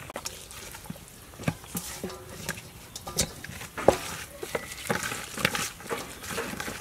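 Hands kneading raw fish and marinade in a stainless steel bowl: irregular wet squelches, with clicks and knocks against the metal, the loudest about four seconds in.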